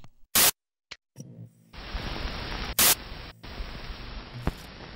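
Glitch and TV-static sound effects: a short, very loud burst of white noise near the start, then steady static hiss from a little under two seconds in, with a second loud burst and a brief cut-out around the middle.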